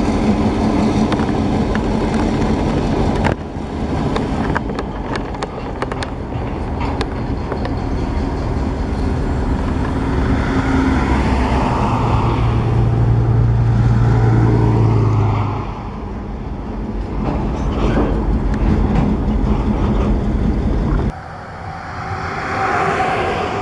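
Diesel-electric locomotives, an EMD FP7 and a GP38, running as they move a train of log cars: a steady low engine drone that grows louder for a few seconds in the middle. Near the end the engine sound drops off abruptly, leaving a lighter rolling rumble.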